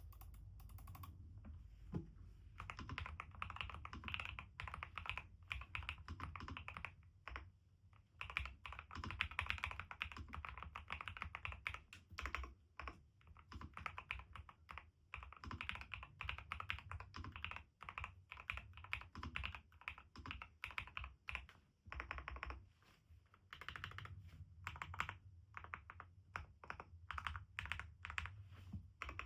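NuPhy Halo75 V2 mechanical keyboard with NuPhy Raspberry switches and mSA keycaps being typed on: runs of rapid keystrokes broken by several short pauses.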